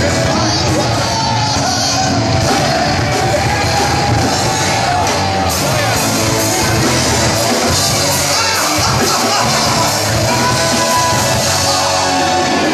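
Live rock band playing loudly with yelled singing.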